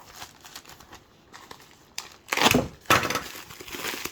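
Packaging being torn open and handled: scattered crinkling and rustling, then a loud rip about two and a half seconds in and a sharp crackle right after.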